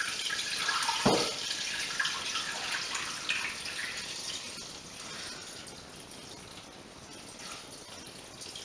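Water pouring in a steady stream from a stainless-steel kettle into a Thermomix mixing bowl over rice in the cooking basket, growing quieter toward the end. A short knock about a second in.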